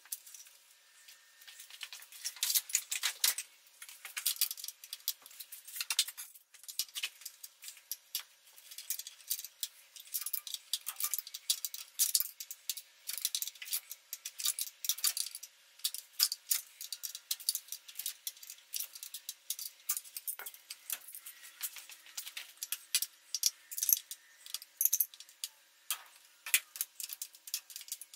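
Ratchet wrench clicking in quick bursts on a socket extension, unbolting a throttle body, with scattered clinks of metal tools.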